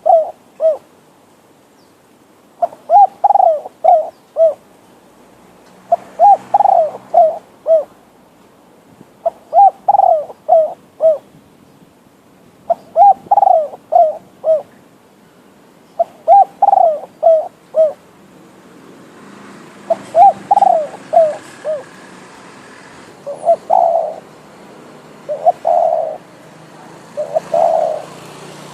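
Spotted dove, a wild-caught decoy bird, cooing: repeated phrases of several notes, one about every three seconds. In the last third a faint steady hiss comes in underneath and the phrases grow shorter.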